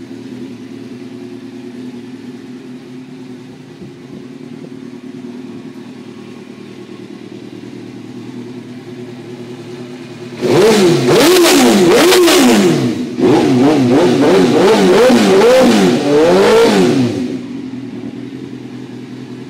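2002 Suzuki GSX-R 750 inline-four, its Leovince SBK II slip-on exhaust run without the dB killer, idling steadily. About ten seconds in, it is revved hard in a rapid run of throttle blips for about six seconds, with a brief pause partway through, then drops back to idle.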